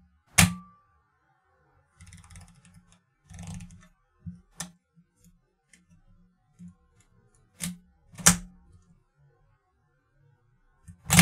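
Leica R8 35 mm SLR being fired by hand: a loud shutter-and-mirror clack about half a second in, then softer rattling clicks as the camera is handled, then two more sharp clacks a little over half a second apart about eight seconds in, and another loud clack at the very end.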